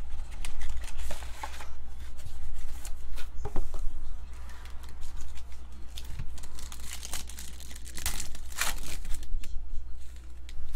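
Cardboard hobby box flap opened, then a foil-wrapped Panini Preferred card pack crinkling in the hands and being torn open, in a run of irregular rustles and rips.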